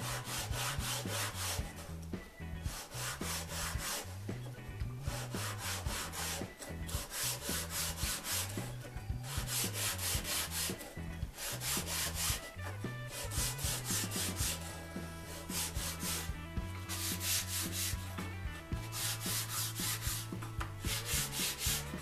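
Sandpaper rubbed by hand along the edges of small redwood sticks, rounding them over. It comes as quick back-and-forth scratchy strokes in runs, with short pauses every couple of seconds, over a low background tune.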